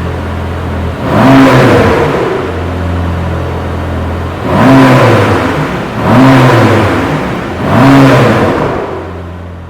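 Mercedes-AMG GT Black Series' 4.0-litre twin-turbo flat-plane-crank V8 idling and revved four times, each rev rising and falling back to idle. The sound fades out near the end.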